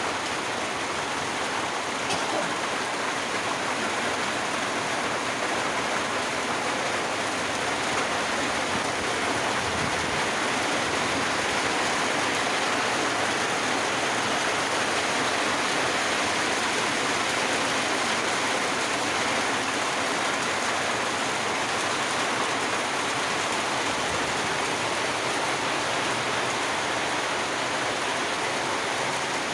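Steady downpour of rain, an even unbroken hiss with no change in strength.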